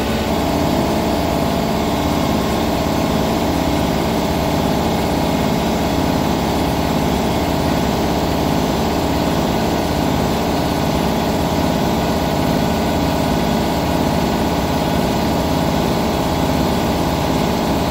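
Air compressor motor running steadily with a fast, even pulse, stopping abruptly at the very end.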